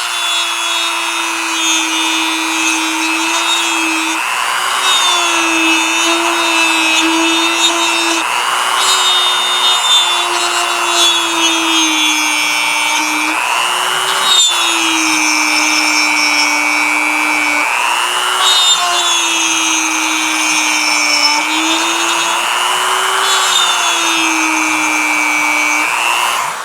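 A small high-speed power tool runs steadily while cutting into wood. Its pitch sags and recovers every few seconds as it bears into the wood and eases off.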